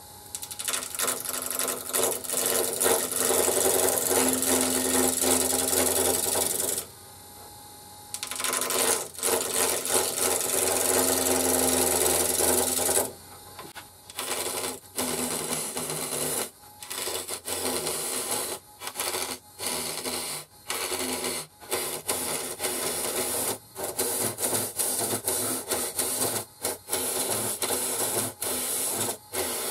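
A bowl gouge cutting the face of a spalted maple and mahogany glued-up blank spinning on a wood lathe, a continuous rasping scrape of tool on wood. The cut stops for about a second and a half a quarter of the way in, leaving the lathe's motor hum, then resumes; in the second half it comes in short cuts with brief gaps between them.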